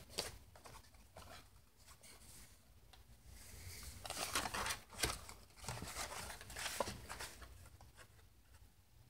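Sheets of leaf-printed boiled-book paper rustling as they are handled, turned and laid side by side, in a few short soft bursts, the loudest about four to five seconds in.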